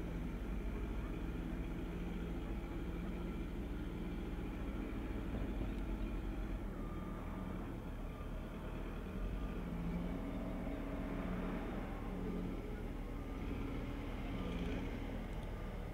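Heavy earth-moving machinery running at a distance, a steady low engine hum whose pitch rises and falls a little in the second half.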